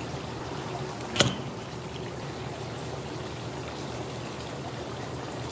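Garden water fountain trickling steadily, with one sharp click about a second in.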